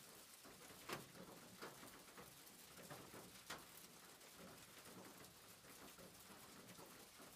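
Near silence: faint hiss with a few soft clicks.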